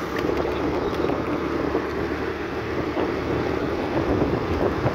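Steady wind rushing over the microphone together with the running noise of the moving vehicle it is mounted on.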